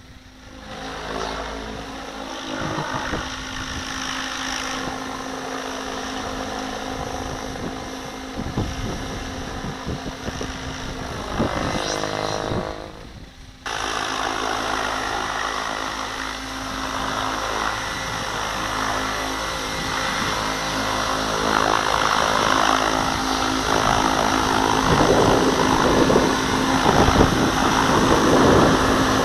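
Radio-controlled model helicopter flying aerobatics, its rotor and motor whine rising and falling in pitch as it manoeuvres. After a sudden cut about halfway through, it grows louder as it comes in close and low over the ground.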